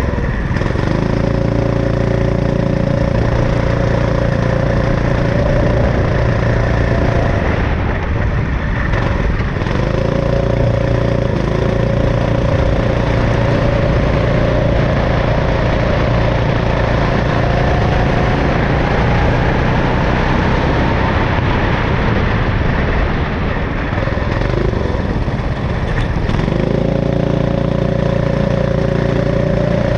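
Onboard go-kart engine at racing speed on a wet track. Its note climbs gradually along the straights and drops away twice, about eight seconds in and again near the end, as the kart slows for corners. A steady rush of wind and road noise runs underneath.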